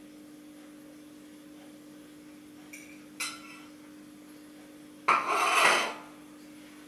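A plate clinks once, then is set down on a ceramic tile floor and scraped across the tiles for about a second.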